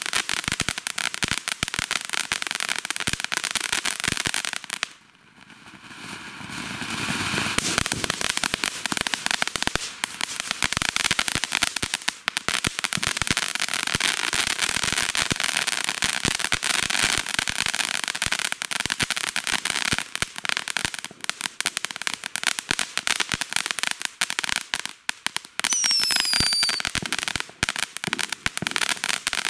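TNT Iron Horse ground fountain firework spraying sparks with dense, continuous crackling. About five seconds in it drops out briefly, then surges back with a rushing hiss and keeps crackling. A short falling whistle comes near the end.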